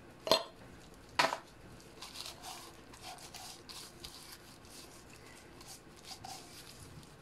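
Two sharp clinks in the first second and a half, then a hand in a thin plastic glove rubbing curry powder and seasoning into a raw whole fish in a ceramic dish: soft, irregular rustling and squishing of the glove on the fish.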